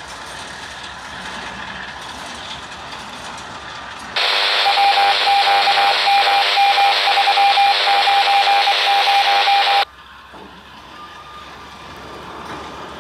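Railroad scanner radio breaking in about four seconds in with a loud burst of hiss and a broken, beeping tone, lasting about five and a half seconds and cutting off abruptly. Around it, autorack freight cars roll past on the rails.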